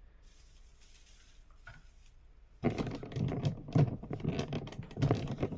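Close handling noise: after a quiet start, a rapid, dense run of clicks, knocks and rustles begins about two and a half seconds in and keeps going.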